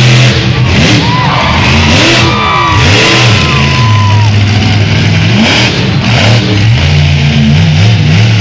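Monster truck engine revving hard and loud, its pitch rising and falling again and again as the throttle is worked.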